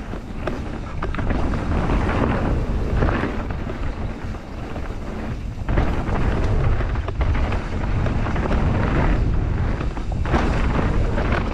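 Wind buffeting the camera microphone and mountain bike tyres rumbling over a rough trail on a fast descent, with scattered knocks and rattles from the bike.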